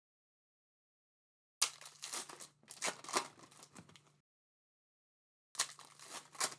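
Trading-card pack wrappers being torn and crinkled, with cards rustling, in two spells of a couple of seconds each, about a second apart.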